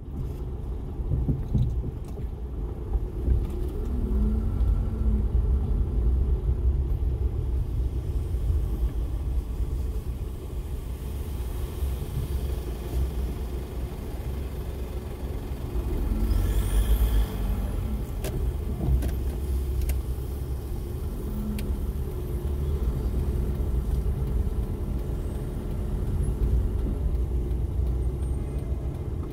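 Car driving, heard from inside the cabin: a steady low rumble of engine and road noise, swelling a little past halfway.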